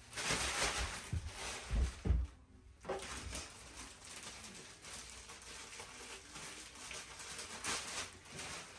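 Rustling and handling of packing material, with two low thuds about two seconds in and a louder crinkle near the end.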